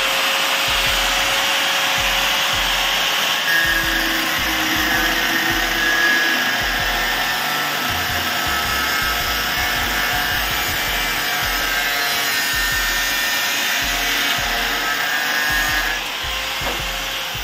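Handheld angle grinder running steadily as its disc cuts a few threads off a threaded metal plumbing fitting, the motor winding down near the end.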